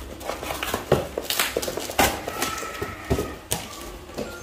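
Irregular clicks and knocks, about one every half second, as plastic-wrapped parts and a cardboard box are handled and shifted on a tiled floor.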